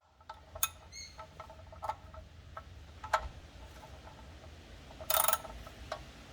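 Last of the engine oil dripping from the oil pan into the drain container: irregular single plinks, one with a short ringing pitch about a second in, and a brief metallic clatter a little after five seconds in.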